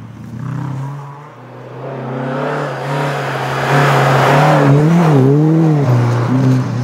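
Historic rally car approaching at speed on a snowy gravel stage, its engine getting louder to a peak about four to six seconds in. The revs rise and dip quickly a few times as it comes through, over a hiss of tyres on the snow, and the engine note drops away near the end.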